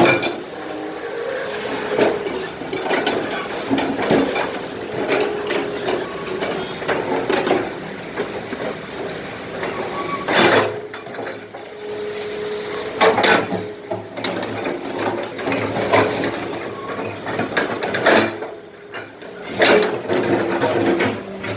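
Excavator at work: its engine running steadily under irregular clanks, knocks and scrapes as the bucket digs into and handles broken concrete.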